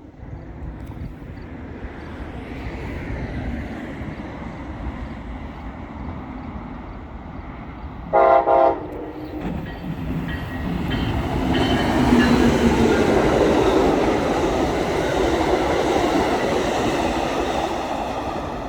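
A passenger train approaching and passing close by: its rumble and rail noise build steadily, the horn gives one short blast about eight seconds in, and then loud steady wheel-on-rail noise as the cars go by.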